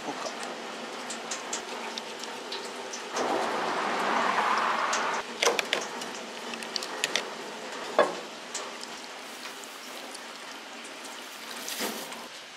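Water splashing or running in a steady hiss, louder for about two seconds a few seconds in, with scattered sharp clicks and knocks.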